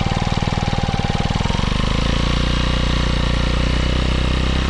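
Kawasaki Eliminator 125's single-cylinder four-stroke engine, picked up by a microphone just behind the muffler outlet. Separate exhaust pulses can be heard at first, then about two seconds in the revs rise and the pulses merge into a steady engine sound.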